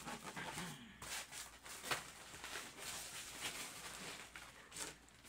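Faint rustling and a few light knocks of packaging being handled as the box is unpacked.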